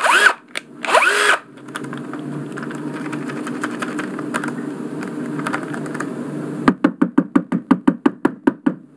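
Cordless drill running on a DCA 20 V battery through a homemade adapter: the motor whirs up and falls back twice in short trigger pulls. Near the end comes a fast, even clicking, about eight clicks a second.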